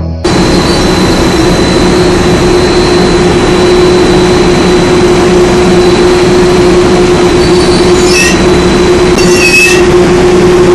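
Offshore drilling rig floor machinery running loudly: a steady mechanical drone with a low held hum, starting suddenly, with two brief high metallic squeals near the end.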